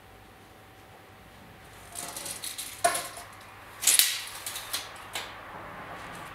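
Rough-sawn wooden boards being handled by gloved hands on sawhorses: a run of light knocks and clicks, then a short scraping rub about four seconds in, over a low workshop hum.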